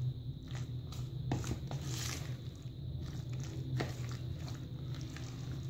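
A hand squeezing and mixing a thick, wet batter of chopped vegetables and chicken in a plastic bowl: irregular soft squelches and smacks, over a steady low hum.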